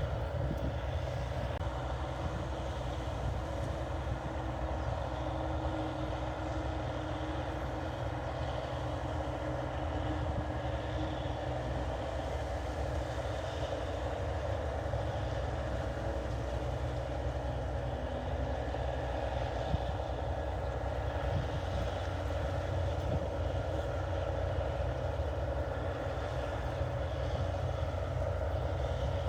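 NH 8080 combine harvester running steadily while harvesting rice, a constant engine sound with no change in pitch or level.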